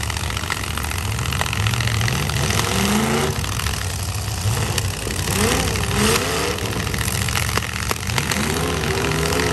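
Demolition derby pickup truck engines running and revving, the pitch rising and falling about halfway through, over a steady low engine hum, with a few knocks of the trucks hitting each other.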